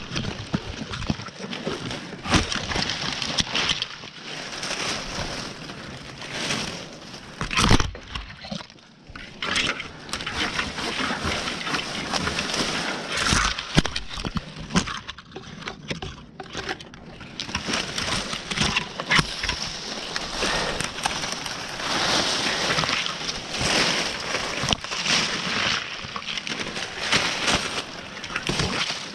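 Leafy branches rustling and twigs cracking and snapping close to the microphone as small growth is cleared from a tree branch, an uneven run of crackles and sharp snaps with no engine sound.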